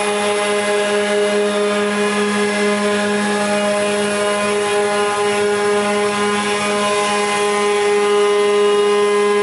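Kupfermühle 60 four-sided planer running with its cutter spindles and motors spinning: a steady drone with a whining tone that holds level throughout.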